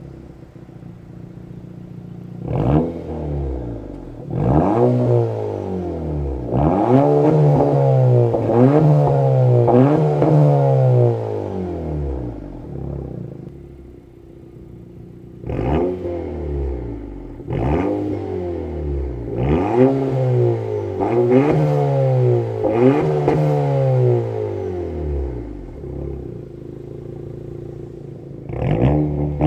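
A Honda Civic Si or Acura Integra fitted with a REMARK Sports Touring (Link Loop) catback exhaust, its 1.5-litre turbo four-cylinder revved up and down again and again in two runs of blips. It drops back to a lower, steady idle for a few seconds midway and near the end.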